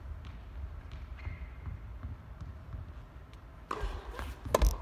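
A few sharp knocks of a tennis ball near the end, the loudest two in quick succession, over the low rumble of an indoor hall.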